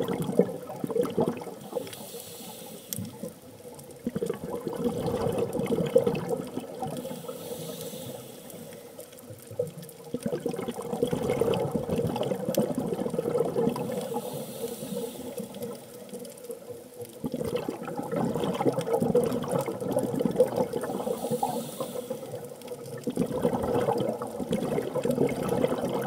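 Scuba diver's regulator exhaust bubbles heard underwater: breathing out in long bubbling rushes of several seconds, about five times, with quieter pauses between breaths.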